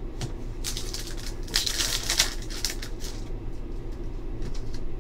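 Trading cards being flipped and slid against each other in the hands, with a run of rustling swishes and light clicks starting about half a second in and lasting about two and a half seconds.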